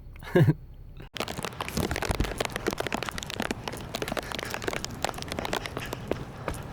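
Rain drops hitting the plastic bag wrapped over the camera: a dense, irregular crackle of tiny clicks that starts suddenly about a second in and keeps on steadily.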